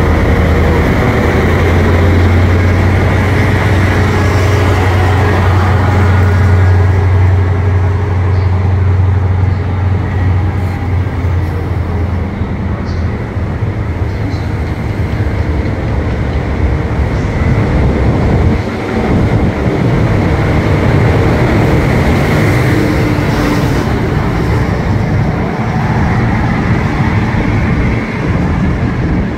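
Great Western Railway High Speed Train with Class 43 diesel power cars running along the platform and away: a steady low diesel drone for the first ten seconds or so, then the rumble of the Mark 3 coaches on the rails. A swell of noise near the end as the rear power car goes by.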